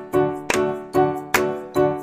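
Background music of evenly spaced notes, about two to three a second, each struck and then fading.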